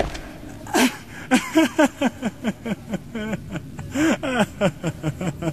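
A man's voice panting and groaning in short, rapid gasps, several a second, as he collapses in distress.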